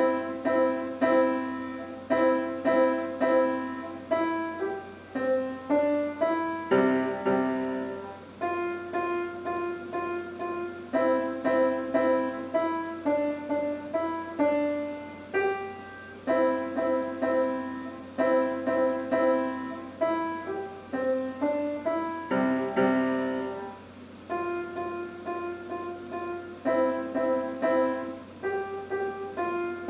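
Solo piano playing a simple melody, the notes struck in short groups of repeated pitches, each note fading after it is struck.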